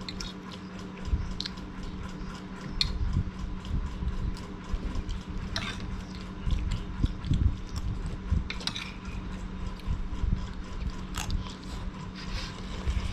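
People chewing and biting food, with irregular soft mouth sounds and a few sharp clicks a few seconds apart, over a steady low hum.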